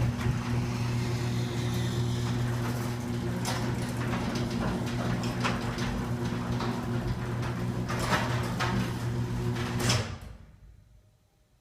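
Uninsulated metal garage door running on its opener: a steady motor hum with rattling and clicking from the panels and rollers, noisy enough that the door is being insulated to deaden it. It stops about ten seconds in.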